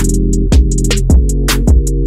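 Background electronic music with a steady drum-machine beat: a low kick about every half second over sustained bass notes, with quick hi-hat ticks above.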